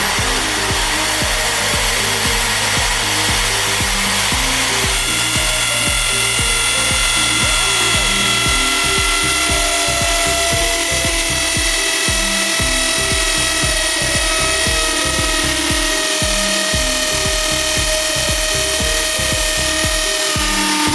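Power drill running at a steady high speed, its motor whine holding level after spinning up at the very start, over background music with a steady beat.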